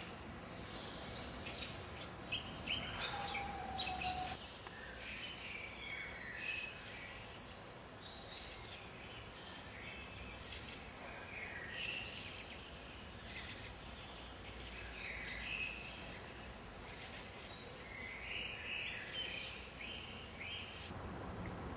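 Birds chirping and calling outdoors, short calls scattered throughout, over a steady low background rumble.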